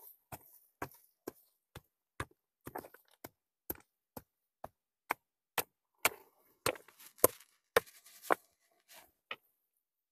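A hand-held stone knocking and scraping into stony dirt as the ground is dug out, a sharp knock about twice a second, the strokes growing louder in the second half and stopping shortly before the end.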